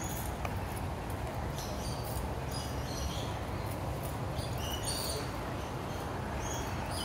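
Birds chirping in short, high calls scattered through, over a steady low background rumble.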